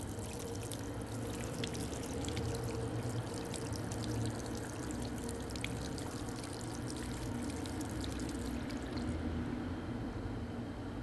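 Liquid pouring or running: a dense, crackly hiss that stops about nine seconds in, over a steady low hum.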